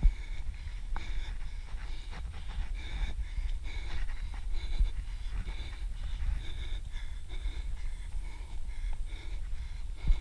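A runner breathing hard in a steady rhythm of panting breaths, with soft footfalls on a dirt trail and a constant low rumble on the moving camera's microphone.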